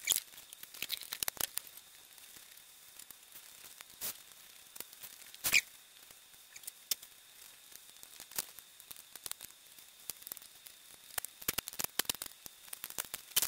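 Scattered clicks, knocks and plastic rattles of hands refitting a car's air intake hose and mass air flow sensor, with one louder knock about five and a half seconds in.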